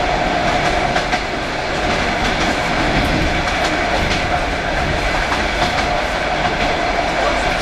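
Aeroexpress electric train running along the track, heard from on board: a steady rumble of wheels on rails with a constant hum and a few faint clicks of wheels over rail joints.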